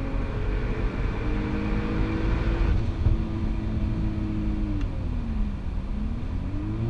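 Turbocharged VW Golf Mk4 R32's VR6 engine heard inside the cabin on track, pulling under load with its pitch rising and holding. About five seconds in the pitch falls as the throttle comes off, then rises again near the end as power goes back on.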